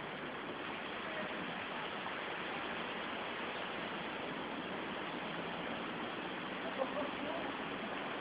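Steady wash of car traffic moving through flood water on a street, tyres churning through the standing water, with a brief knock about seven seconds in.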